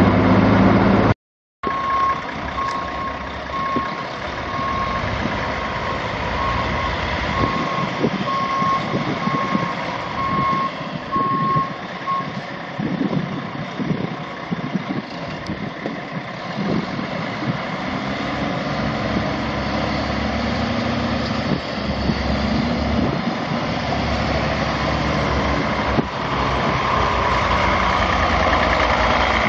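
Heavy diesel truck engine running, the Mercedes-Benz MBE 4000 12.8-litre inline-six of a 2004 Freightliner Columbia. For about the first ten seconds a high electronic beep repeats about once a second, like a backup alarm. The engine grows louder near the end.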